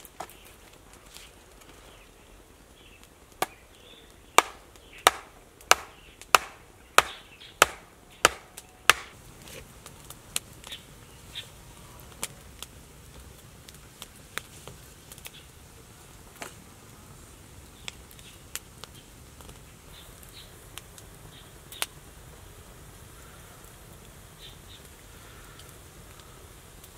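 Wood being chopped or struck: a run of about eight sharp, evenly spaced blows, roughly one and a half a second, ending about nine seconds in. Scattered lighter knocks and cracks of wood follow.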